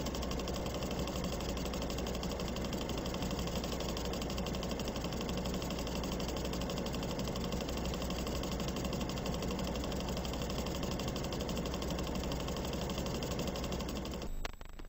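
Film projector running: a steady, rapid mechanical clatter, used as a sound effect under a countdown leader, that cuts off near the end.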